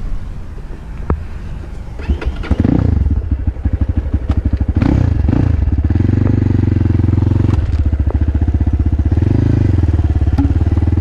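Crossfire dirt bike's engine: it comes up loud about two and a half seconds in, is revved twice, then runs steadily.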